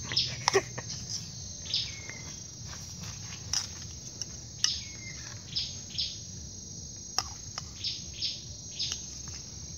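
Insects trilling steadily at a high pitch, with short bird chirps every second or so, some gliding down in pitch, and a few sharp clicks.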